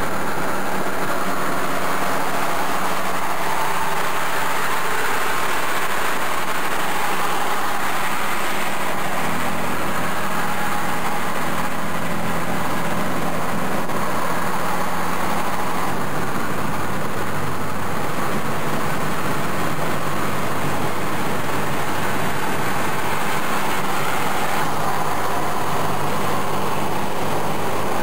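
Car driving at highway speed, heard from inside the cabin: steady engine and road noise, with the engine note shifting a couple of times.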